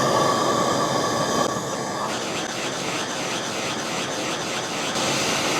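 A heating tool running against the Norton Atlas cylinder head to free a seized rocker axle: a steady rushing hiss with a faint whine.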